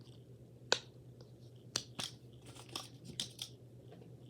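Plastic fidget toys being handled while they are counted out: a few sharp clicks and lighter clicking and tapping, over a faint steady hum.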